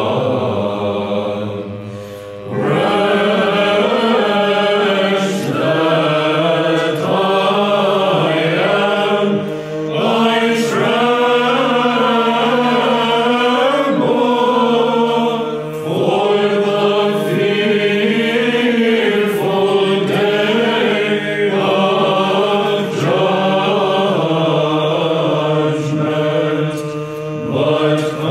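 Byzantine chant sung in English by a mixed choir of men's and women's voices, the melody moving in unison over a steady held drone (ison). The melody breaks off briefly about two seconds in, then resumes.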